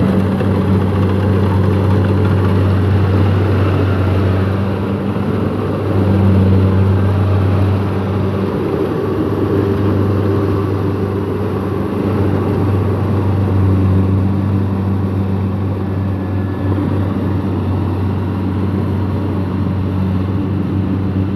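Kubota DC-70 rice combine harvester running steadily under load while cutting rice, its diesel engine droning evenly.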